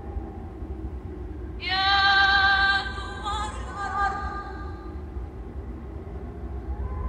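A high held vocal note with many overtones, in the manner of a woman singing, comes in abruptly about a second and a half in. It is loudest for about a second, then wavers more faintly until about five seconds in, all over a low steady rumble.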